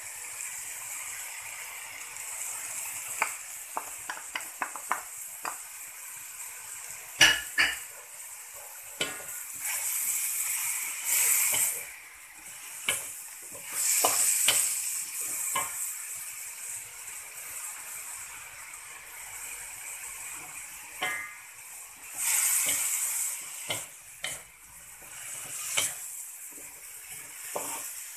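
Shredded cassava leaves sizzling in hot oil in a wok as a wooden spatula stirs and scrapes them, with scattered sharp knocks of the spatula against the wok and louder swells of sizzling each time the leaves are turned.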